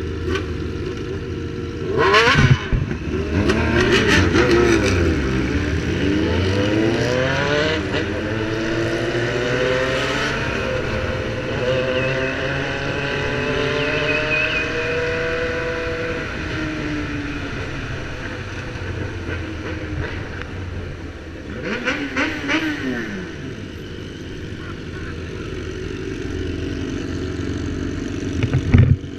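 Motorcycle engines on a group ride. Sharp revving bursts come a couple of seconds in and again about three quarters of the way through. In between, the camera bike, a BMW F800R with a parallel-twin engine, pulls away, its pitch rising and falling through the gears.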